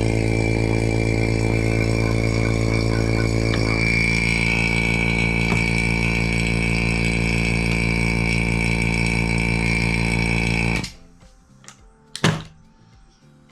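Electric vacuum pump running with a steady hum and a high whine, switched off abruptly about eleven seconds in. This is a test run showing that the pump works with its new fitting. A sharp knock follows shortly after.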